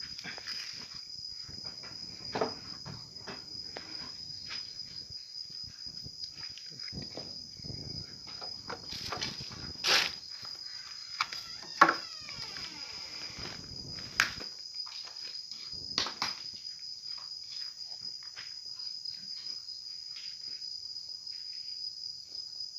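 Steady high insect trill, like crickets, with scattered knocks and clatters, the loudest about ten and twelve seconds in.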